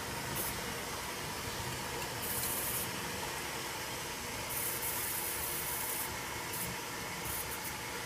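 Washing machine running: a steady mechanical hum with bursts of hissing water spray, the longest lasting about a second and a half just past the middle.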